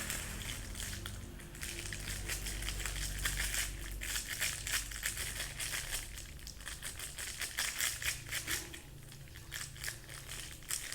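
Packaging crinkling and rustling as it is handled and unwrapped, a dense run of irregular crackles.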